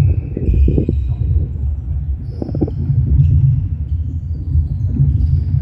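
Netball players running on a sports-hall floor: footfalls and thuds, with short high shoe squeaks about two and a half seconds in and near the end, over a steady low rumble in the large hall.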